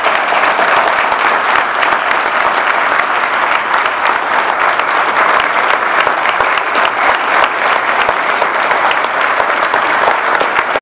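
A large audience clapping, a dense steady applause.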